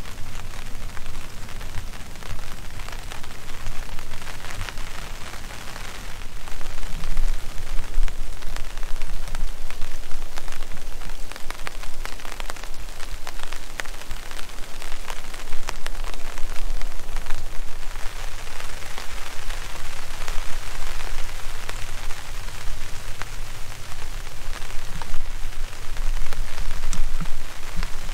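Steady rain falling, with many separate drops ticking on surfaces close by, growing heavier about six or seven seconds in.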